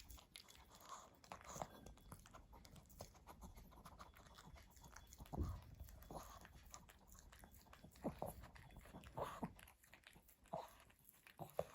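Pomeranian dog eating, faint crunching and chewing bites coming irregularly, with one louder knock about five and a half seconds in.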